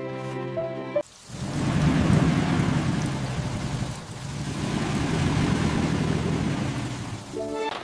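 Thunder rumbling over steady heavy rain, in two long swelling rolls. A brief steady tone with several pitches sounds in the first second, before the rumble starts.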